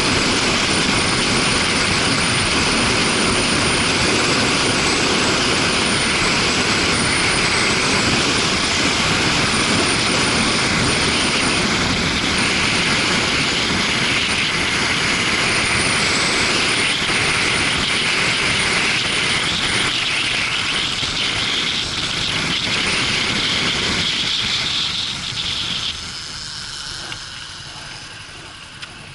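Suzuki GW250 Inazuma motorcycle running at speed, mostly heard as wind rushing over the action camera's microphone. Near the end the sound eases off and drops as the bike slows down.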